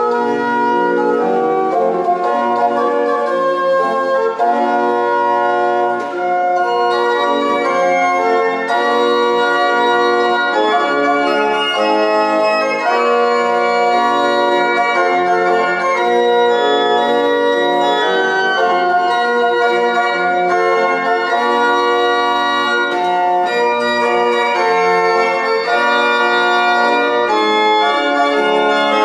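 Organ playing a hymn tune in full, sustained chords, moving from chord to chord about once or twice a second at a steady, even volume.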